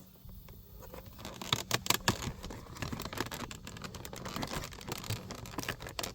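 Plastic clicking and rattling as the orange locking tabs on a power window switch housing are pressed in and the switch is worked out of the door trim piece. Irregular sharp clicks, the loudest about one and a half to two seconds in.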